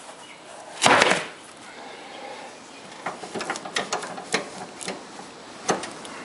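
Handling noises: a short, loud scuff about a second in, then a scatter of small clicks and knocks as hands work the removed wheel and wipe the front spindle of a John Deere L130 lawn tractor with a rag.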